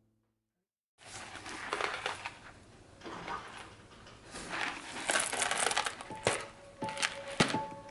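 Cardboard pasta box being handled and torn open, the cardboard crackling and tearing from about a second in, with a few sharp clicks near the end.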